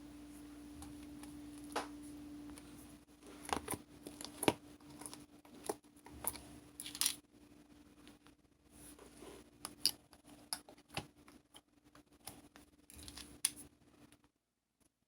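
Irregular small sharp clicks and snips, a couple to a few each second, over a faint steady low hum that fades out after the first couple of seconds.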